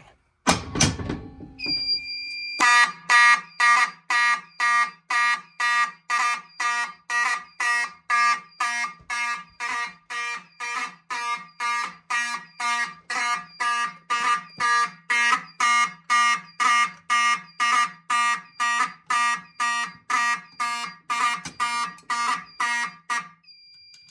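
Fire alarm horn sounding in march-time coding, about two short buzzing blasts a second, evenly spaced, stopping shortly before the end. It is preceded by a thump and a steady high beep from the alarm panel.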